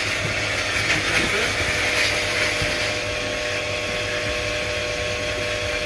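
K9000 self-service dog-wash station running: its motor starts abruptly and runs steadily, a whine over a rushing hiss.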